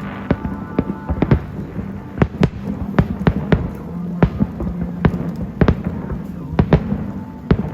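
Aerial fireworks going off in quick, irregular succession: a string of sharp bangs and cracks, about two or three a second, over a steady low hum.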